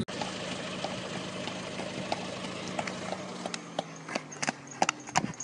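An engine running steadily nearby, its pitch dropping slightly about three seconds in. From about halfway, a horse's hooves clop on the asphalt road, getting louder as it trots closer.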